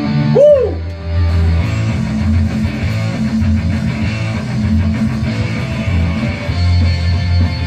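Rock song playing, with electric guitar over a pulsing low beat; the guitar bends up and back down about half a second in.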